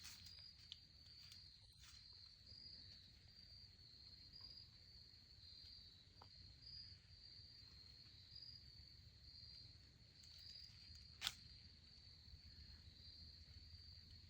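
Faint, steady high-pitched trilling of insects in the woods, with one sharp click about eleven seconds in.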